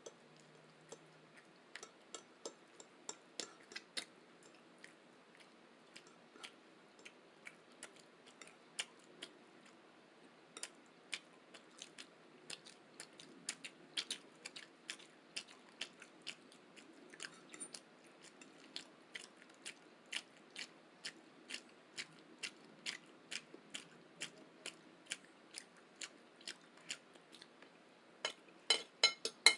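Close-miked mouth sounds of someone chewing breakfast food: a steady run of short wet clicks and crunches, about two or three a second, with a few louder clicks near the end.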